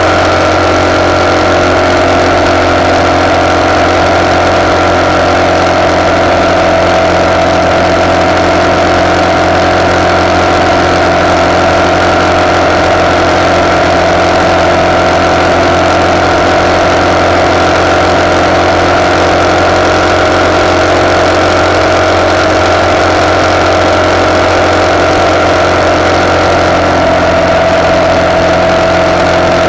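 RPS Hawk 250's single-cylinder four-stroke engine, fed by a Keihin PWK30 carburetor and exhausting through a de-catted CRF230 pipe, running at steady cruising revs with almost no change in pitch. It is heard through the handlebar-mounted camera's own microphone, with a steady hiss of wind and road noise under it.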